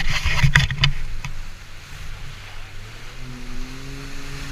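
Yamaha EX Sport jet ski's three-cylinder engine running, with loud crackling, knocking noise over it in the first second, then a steady hum whose pitch steps up slightly about three seconds in.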